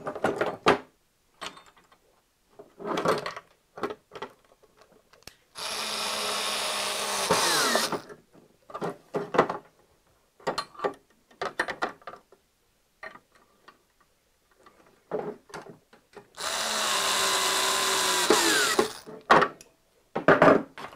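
Red cordless drill/driver driving Phillips machine screws into self-locking nuts, in two runs of about two and a half seconds each, its motor pitch dropping near the end of each run as the screw pulls tight. Between the runs, short clicks and knocks from handling the parts and pliers.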